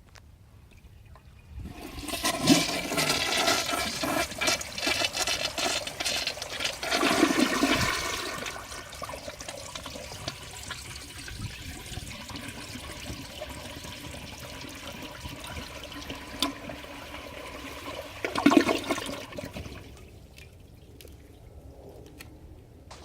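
1990 Kilgore 201 WS toilet flushing: a loud rush of water starts about two seconds in and lasts about six seconds, then settles into a quieter steady run of water, with a brief loud surge near the end before it dies away.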